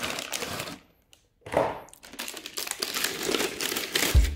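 Packaging crinkling and rustling as toys are unwrapped, with a brief silent break about a second in. Background music with a beat comes back near the end.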